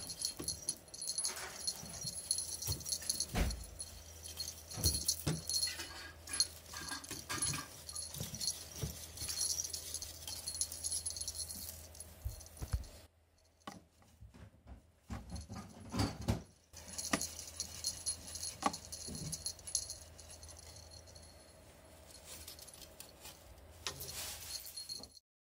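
Small bell on a feather wand cat toy jingling on and off as a cat bats at it, with light knocks and scuffs scattered through; a quieter stretch about halfway.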